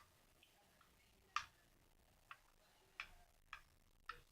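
Faint, scattered clicks, about five over a few seconds, of a spoon knocking against the mixing container while slime is stirred.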